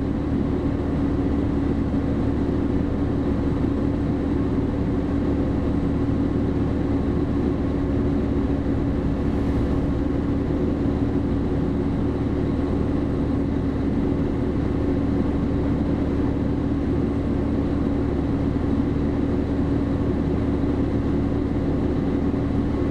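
Fire engine's diesel engine running steadily, a constant unbroken drone with a steady hum, heard from the dash camera in the cab.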